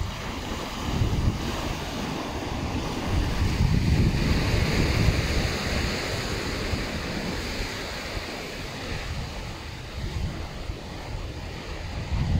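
Sea surf washing against a rocky shore, a steady rushing hiss that swells around the middle, with wind buffeting the microphone in gusts.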